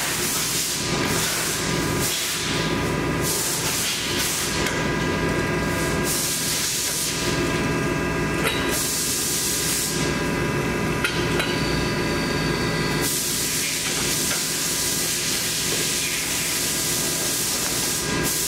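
CNC sheet-metal folder running, its drive motors giving a steady hum with a hiss that swells and fades as the clamping beam moves, with a faint click or two in the middle.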